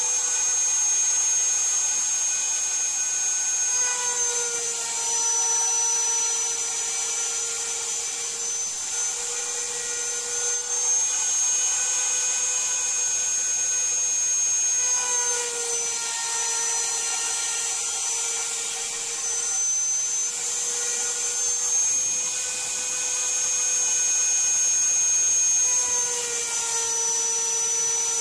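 Router spindle of an MPCNC running steadily with a 1/4-inch end mill milling a pocket in iroko hardwood. Its whine sags slightly in pitch a few times as the cutter moves through the wood.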